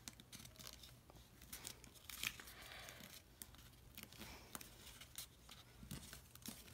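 Origami paper being folded and creased by hand, with faint, irregular crinkles and crackles of the paper.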